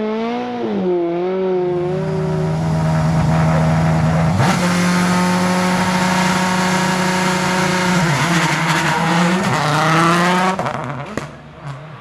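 Rally car engines: an engine revving up and down, then a loud engine held at a steady high pitch for several seconds, dipping and rising again near the end before it drops away about a second before the close.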